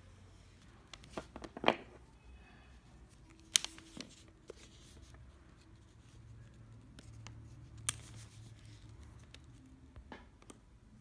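Steel needle-nose pliers and a lead split-shot sinker being handled and pinched onto fishing line: a few sharp clicks, the loudest about two and three and a half seconds in, with another near eight seconds and soft handling sounds between.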